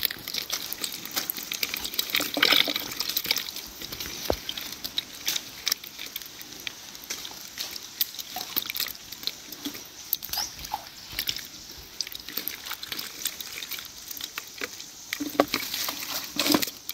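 Water splashing and dripping in a plastic bucket as small live fish are shaken out of a mesh fish trap and handled in shallow water: many small, irregular splashes and ticks.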